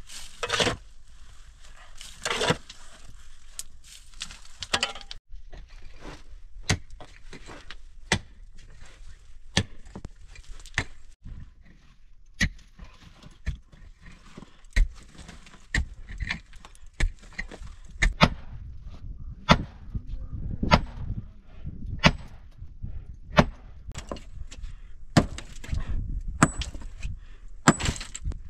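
Digging in stony ground: a tool strikes rocks in irregular sharp knocks, one or two a second, with gravel and dirt scraping and tumbling in between.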